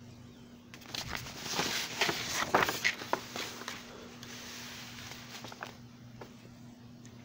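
Handling noise: a run of rustles and light knocks for about three seconds, loudest about two and a half seconds in, then a few faint clicks, as the camera is moved about. A low steady hum runs underneath.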